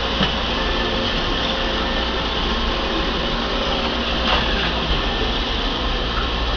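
iRobot Roomba 550 Pet Series robot vacuum running: a steady whirring motor and brush noise with a thin whine over it. There is a faint click about four seconds in.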